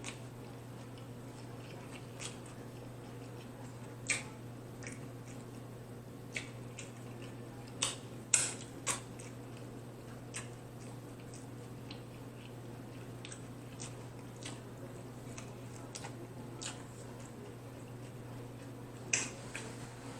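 A person eating steak tacos close to the microphone: chewing, with scattered wet mouth clicks and bites, the loudest a cluster of three about eight seconds in.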